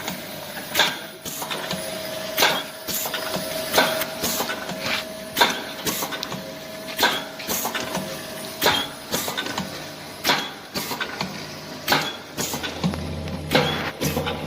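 Automatic burger patty and nugget forming machine running, with a sharp mechanical clack about every one and a half seconds as it cycles and lighter clicks between, over a steady motor hum. A lower hum comes in near the end.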